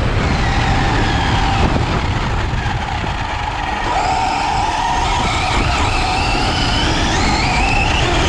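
Twin brushless electric motors of an Arrma Mojave RC desert truck whining at speed over a heavy rush of wind and grass on the onboard microphone. The whine sags as the truck slows about halfway through, then climbs steadily in pitch as it accelerates again.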